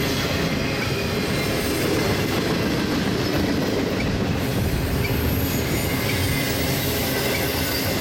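Double-stack intermodal container cars of a CSX freight train rolling past: a steady rumble of steel wheels on the rails, with faint high-pitched wheel squeals coming and going.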